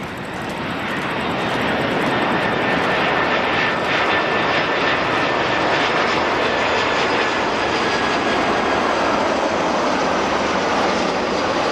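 Airbus A340-300's four CFM56 turbofan engines on short final approach, a loud steady rush of jet noise that swells over the first couple of seconds as the airliner passes low, with a faint high whine through the middle.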